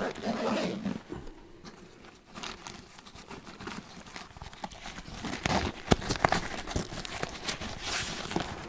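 A combat medic pack and its supplies being handled: rustling with irregular clicks and knocks, the sharpest knocks about two thirds of the way through.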